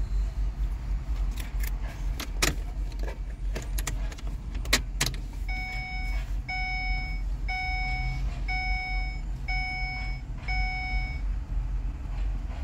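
A few sharp clicks, then an electronic beeper sounding six even beeps about a second apart, over a steady low hum.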